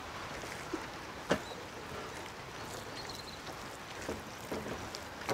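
Steady outdoor background noise with soft sounds of a hand mixing oily red masala paste on a large aluminium platter, and a single sharp click about a second in.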